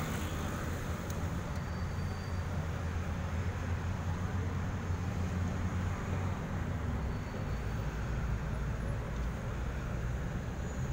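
Steady low rumble of road traffic, with no clear single event standing out.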